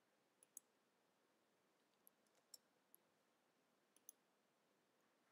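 Near silence with four faint computer mouse clicks spread across a few seconds.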